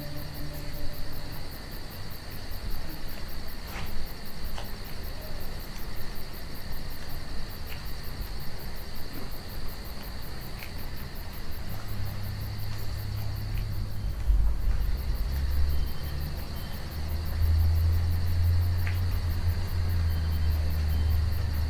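Crickets chirping steadily, with a low droning rumble underneath that grows louder about halfway through.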